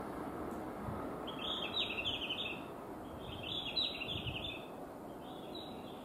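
Electronic bird-chirp guidance sound of a Japanese railway station, playing three bursts of rapid high chirps about two seconds apart. Under it is a low rumble that drops away about four and a half seconds in.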